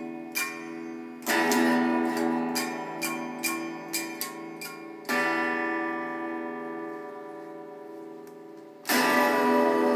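Electric guitar strummed hard three times, about a second in, about five seconds in and near the end, each strum the same chord left to ring out and slowly fade. Lighter plucks and taps on the strings sound between the strums.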